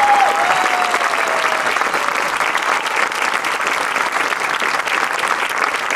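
Large audience applauding steadily, with a single long held tone over the clapping that fades out in the first couple of seconds.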